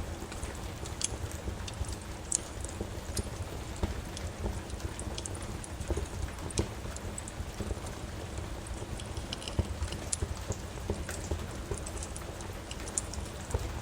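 Steady rain with a wood fire crackling, sharp pops and snaps scattered irregularly through it over a low rumble.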